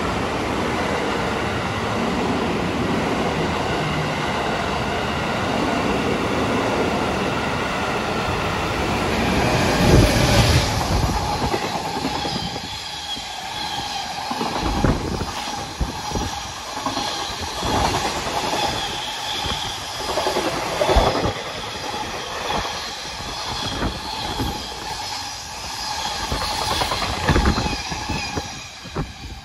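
An electric passenger train passing close by gives a dense steady rumble. About ten seconds in, a freight train arrives, the loudest moment. Its container flatcars then clatter over the rail joints in an irregular clickety-clack with a thin wheel squeal, fading near the end as the last wagon passes.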